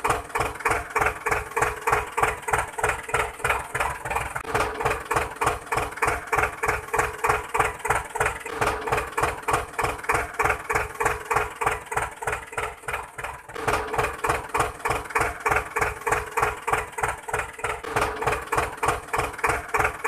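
Homemade miniature tractor running with a steady, even chugging beat of about five knocks a second, with a held hum that drops out in the middle and returns about two-thirds of the way in.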